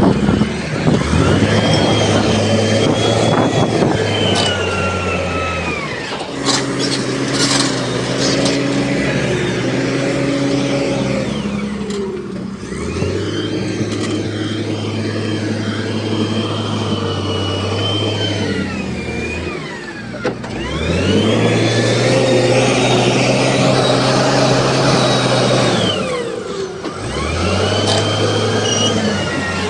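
Diesel engine of heavy earthmoving machinery revving up and dropping back over and over in working cycles of roughly seven seconds, holding high revs between drops. A high whine rises and falls along with the engine.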